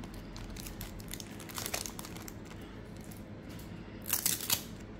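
Wrapper of a 1998-99 Skybox NBA Hoops basketball card pack crinkling as it is handled, in two short bursts, about a second and a half in and again near the end.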